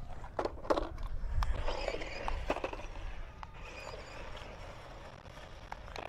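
Spin Master Turbo Boost RC Batmobile set down on asphalt with a few knocks, then its small electric motor whining and its plastic tyres rolling on the pavement as it drives away, fading.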